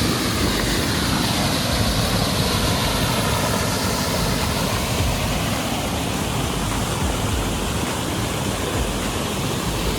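Water rushing steadily over a small village dam, a loud even roar of flowing water.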